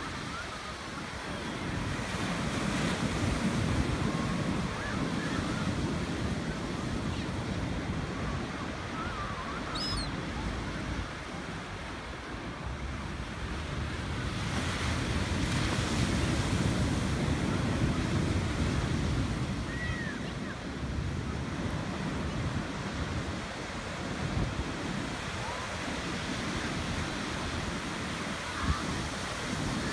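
Ocean surf breaking on a sandy beach: a steady rushing wash that swells and eases every several seconds as waves come in.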